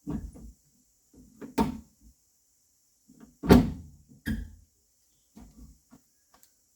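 A series of heavy wooden thuds and clunks, about five main knocks a second or so apart, the loudest about halfway through, with a sharp click near the end: firewood being thrown or stacked into a pickup's load bed.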